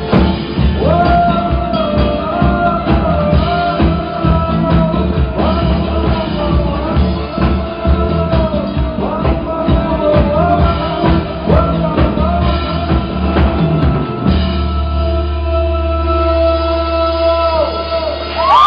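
Live rock band and lead singer performing a song, with drums driving under the vocal line. About fourteen seconds in the drums stop and the band holds a final sustained chord as the ending.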